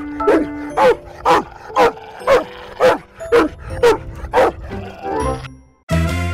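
A dog barking in a steady run, about two barks a second, over background music; the barking stops about five seconds in.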